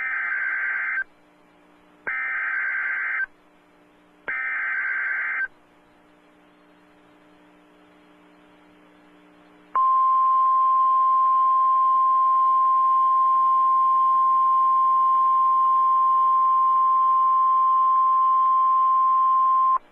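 Emergency Alert System SAME data tones: three warbling digital bursts of about a second each, two seconds apart. These are the header coding the next severe thunderstorm warning. After a few seconds' pause, NOAA Weather Radio's steady 1050 Hz warning alarm tone sounds for about ten seconds.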